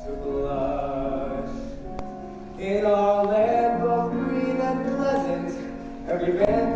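Stage musical number: voices singing over instrumental accompaniment, getting louder about two and a half seconds in.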